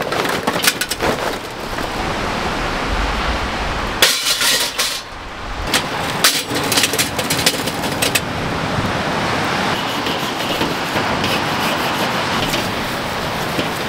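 Lumps of charcoal clattering in a kettle grill: first poured from a bag into a chimney starter, then a loud rush about four seconds in as the chimney's coals are tipped into the charcoal baskets, with more rattling after. Near the end the cooking grate is scrubbed with a grill brush.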